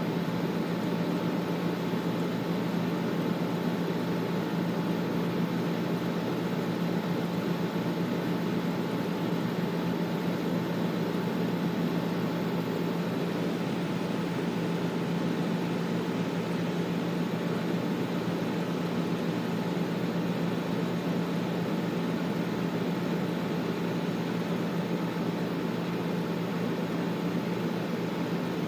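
Air conditioner running: a steady, even rush of air over a constant low hum.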